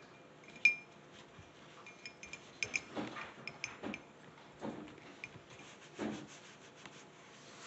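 A paintbrush being scrubbed around inside a ceramic mug, clinking sharply against its sides several times, the loudest clink about a second in, with short rubbing strokes in between.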